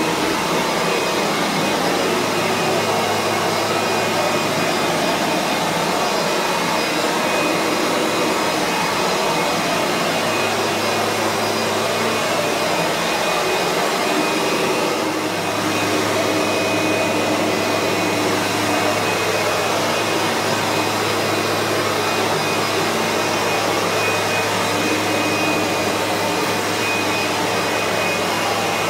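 Kirby G3 upright vacuum running steadily with its buffing head fitted, buffing wax off a laminate floor. A steady high whine sits over the motor noise.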